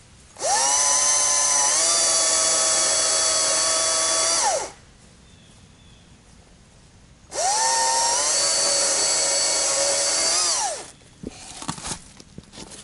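Stihl MSA 200 battery chainsaw cutting firewood in two bursts of about four seconds each. Its electric motor whines up to speed, holds, then winds down at the end of each cut. A few light knocks and rustles follow near the end.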